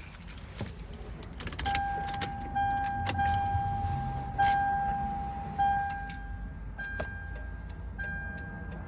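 Turn-signal flasher on a Lexus LX470 clicking at a normal, steady rate of about one click every 1.2 seconds with newly fitted error-free LED bulbs: no hyper flash. A steady electronic warning tone from the vehicle sounds alongside it from about two seconds in.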